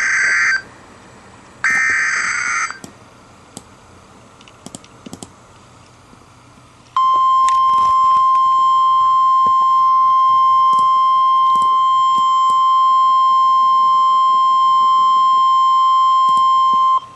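NOAA Weather Radio Emergency Alert System broadcast of a Severe Thunderstorm Warning. Two short bursts of buzzing SAME data tones, the end of the digital alert header, are followed about four seconds later by the steady 1050 Hz warning alarm tone. The tone is held for about ten seconds and announces that a warning message follows.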